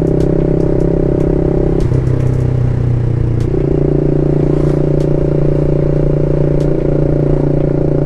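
BMW G310 RR's single-cylinder engine, fitted with an aftermarket exhaust, running steadily at low speed on the move. Its note drops about two seconds in and comes back up a second and a half later.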